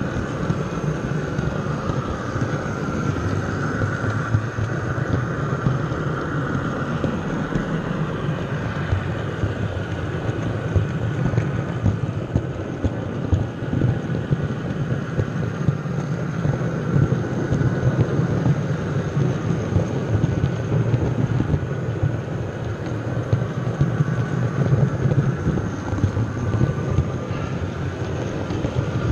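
Model train running on its track, heard from a camera wagon riding in the train: a steady rumble with dense, rapid rattling of wheels on the rails.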